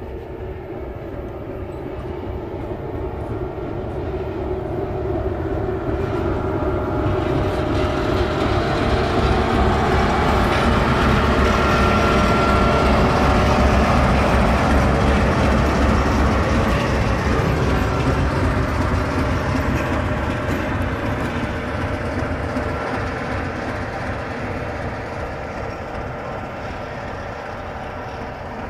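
Diesel locomotive 667-001-4 passing slowly along the line. Its engine and running gear grow louder as it approaches, are loudest about halfway through as it goes by, then fade as it moves away.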